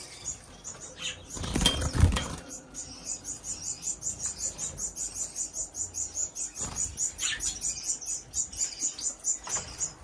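A small caged finch calls in a quick, even run of short high chirps, about four or five a second. About two seconds in there is a louder rustle with a dull thump.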